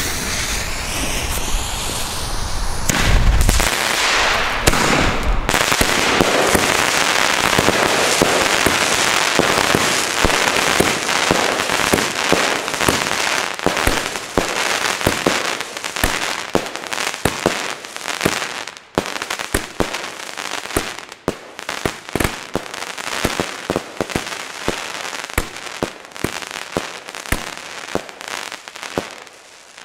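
Pyroland Crackling Cartel firework battery firing. A sparking fuse hisses, then shots launch with deep thumps about three seconds in. The bursting stars then make a dense wash of crackling, which breaks up into separate sharp crackles and pops that thin out near the end.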